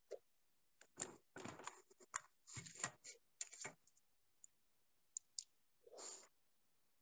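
Faint scattered clicks, taps and handling knocks from someone working a computer close to its microphone, most of them in the first four seconds, a few single ticks after that, and a softer rustle about six seconds in.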